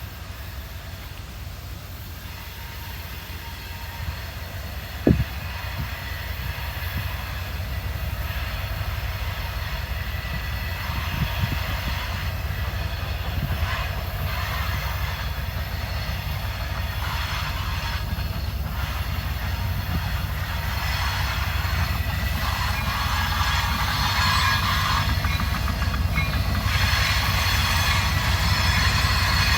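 CN train cars rolling past on the wye, a steady rumble of wheels on rail that slowly grows louder. There is one sharp click about five seconds in, and from about two-thirds of the way through, wheels squeal on the curve.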